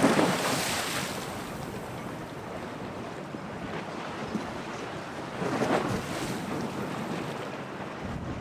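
Storm waves breaking and washing in a harbour under strong wind, with gusts buffeting the microphone. Two louder surges stand out: one at the start and one about five and a half seconds in.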